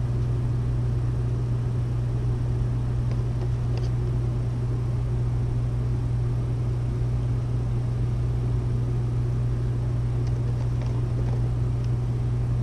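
A steady low mechanical hum with an even hiss behind it, and a few faint light clicks as a boxed vinyl figure is handled.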